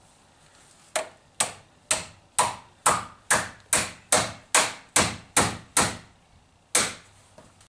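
A hammer tapping on the wooden frame of a chalkboard: a quick, even run of about a dozen light knocks, roughly two to three a second, then a pause and one last tap near the end.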